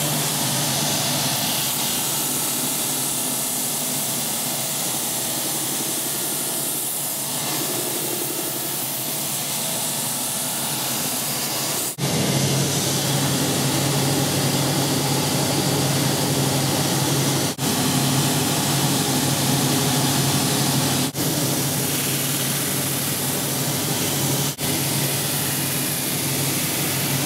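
Shoe-repair finishing machine running steadily: a constant motor hum under the whir of spinning buffing brushes and wheels, as the edge of a newly fitted leather sole is buffed. The sound drops out for a moment about four times in the second half.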